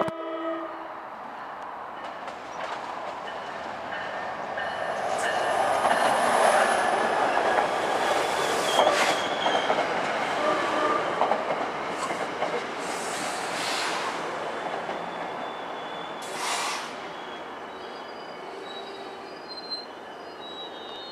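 An NJ Transit diesel commuter train passing close by. A horn blast ends about a second in, then the rumble and wheel noise on the rails swell, loudest around six to nine seconds in. Several sharp clanks sound as the coaches go by, and the noise slowly fades near the end.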